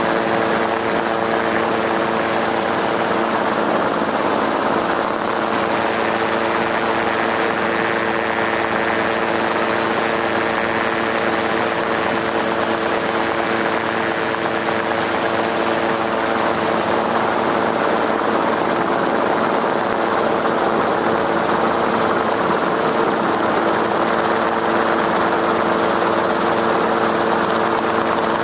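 Steady, unchanging rotor noise from the aircraft carrying the camera: a constant hum of several fixed pitches over an even hiss.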